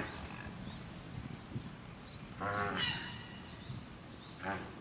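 Great white pelican calling: a drawn-out low call about two and a half seconds in and a shorter one near the end, over steady outdoor background noise.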